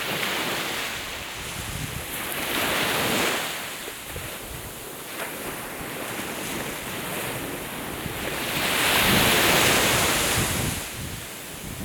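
Sea waves washing onto the shore, the hiss swelling and fading in surges, loudest near the end, with wind buffeting the microphone.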